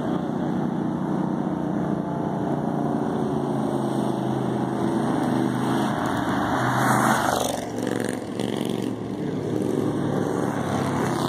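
Bandolero race cars' small single-cylinder Briggs & Stratton engines buzzing steadily as the pack laps the road course. A loud whoosh of wind on the microphone rises and dies away about seven seconds in.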